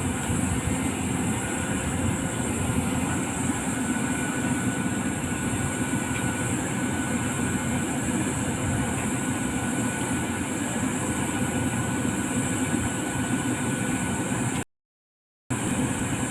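CAT 320D hydraulic excavator's diesel engine running steadily, with a faint steady whine above it. The sound cuts out completely for under a second near the end.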